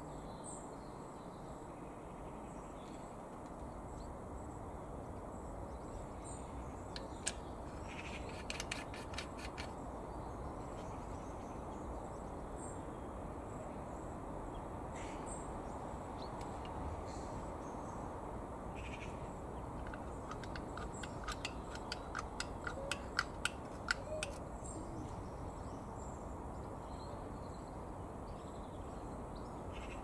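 Outdoor ambience: steady background noise with birds chirping now and then, and two bouts of rapid clicking chatter, one about eight seconds in and a louder one around twenty to twenty-four seconds in.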